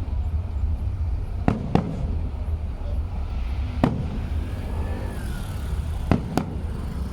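Fireworks going off: five sharp bangs, coming as a pair, a single bang, then another pair, each pair about a quarter second apart, over a steady low rumble. A faint whistle rises and falls about five seconds in.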